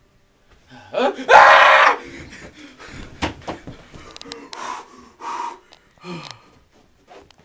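A person's loud, breathy gasp about a second in, followed by scattered knocks and a few short vocal sounds.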